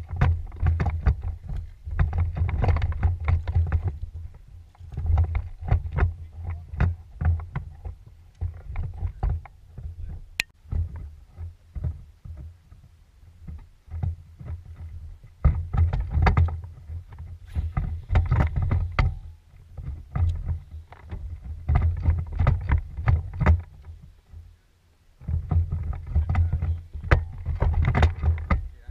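Wind rumbling on an outdoor microphone in gusts that come and go every few seconds, mixed with small knocks and rustles from a small fishing boat.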